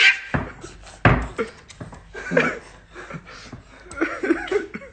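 A short loud cry at the start, then two heavy thumps within the first second or so, and after them scattered short non-word vocal sounds during rough play-fighting.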